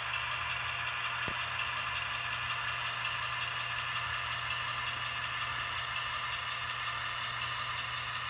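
Zimo sound decoder in a Roco HO model of a DSB My diesel locomotive, playing the diesel engine sound of the real locomotive's EMD 567 two-stroke prime mover through its small onboard speaker. The sound runs steadily as the model creeps along, with a single sharp click about a second in.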